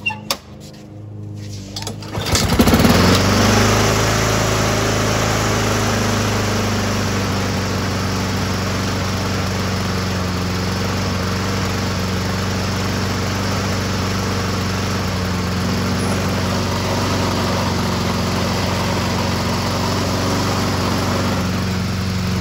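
Honda HRR216 lawn mower's GCV160 single-cylinder four-stroke engine starting: a few clicks, then it catches about two and a half seconds in and runs at a steady speed. It is running on a new aftermarket carburetor with the governor readjusted.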